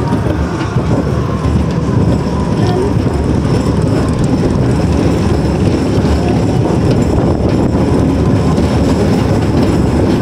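Schwarzkopf Super Railway monorail roller coaster car rumbling and rattling along its steel track at speed, heard from on board. The noise is loud and steady throughout.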